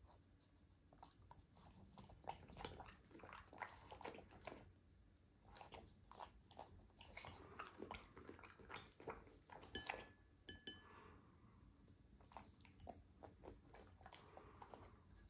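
A French bulldog softly chewing and crunching pieces of vegetable, in many short irregular bites. Near the middle, chopsticks tap the ceramic bowl a couple of times with a brief ringing click.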